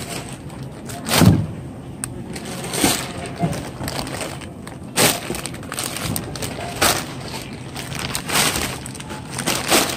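Groceries being unloaded onto a checkout conveyor belt: irregular knocks, clatter and crinkling as jars, bottles and plastic-wrapped packages are set down and handled, with a sharper knock every second or two.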